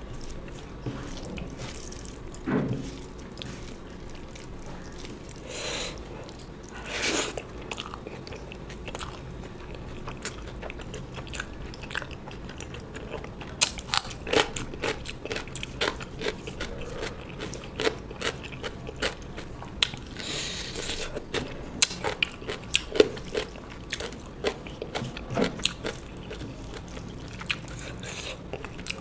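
Close-miked eating: a person chewing and crunching food, with many short, crisp clicks and crackles from about halfway through.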